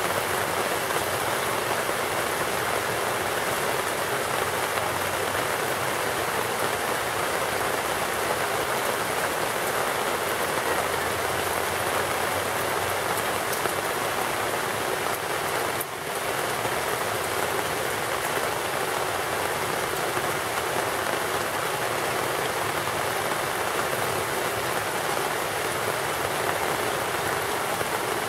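Heavy rain falling steadily: a morning downpour.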